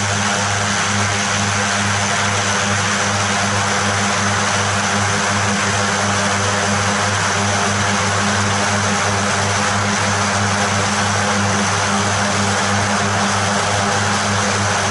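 Twin Pratt & Whitney PT6A turboprop engines and propellers of a Beechcraft King Air C90 running steadily during the landing rollout and turn-off onto the taxiway. The sound is a steady low hum under an even hiss.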